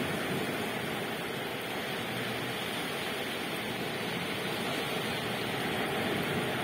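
Sea surf breaking and washing up the beach, a steady rush of water noise.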